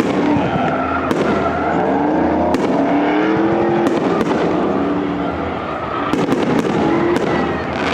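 Aerial fireworks going off in a display: a string of sharp bangs at irregular intervals, several in quick succession late on, over a continuous crackling haze.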